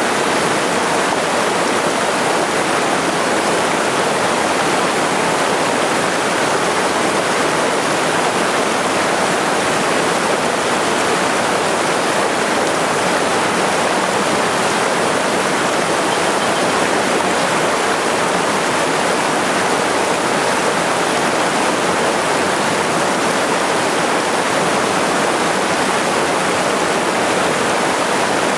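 Small cascade on a mountain headwater stream pouring over boulders into a pool: a steady, even rush of water.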